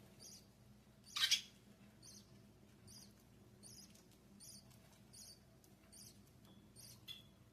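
Baby parakeet chicks in the nest cheeping faintly: a short high peep repeats about every three-quarters of a second, with one louder rising squeak about a second in.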